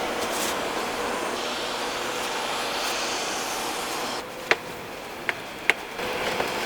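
Snowboard sliding over snow with a steady scraping hiss. Near the end it drops away, and three sharp clacks of the board striking hard surfaces come in quick succession before the sliding hiss returns.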